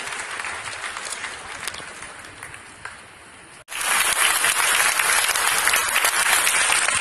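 A large audience applauding. Just past halfway the clapping cuts off abruptly and resumes louder and denser.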